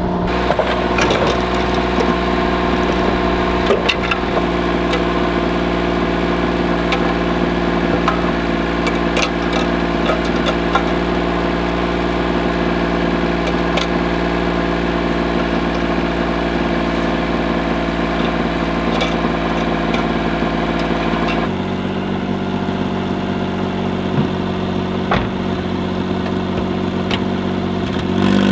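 Suzuki kei mini truck's small engine idling steadily, with scattered light clicks from handling the strap and wire. The engine note changes about three-quarters of the way through.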